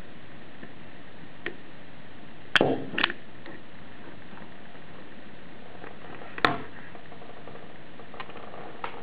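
Knipex automatic wire stripper squeezed on a thin insulated wire: a sharp snap about two and a half seconds in with a second click just after as the insulation is cut and pulled off, then another sharp click about six and a half seconds in, over a steady hiss.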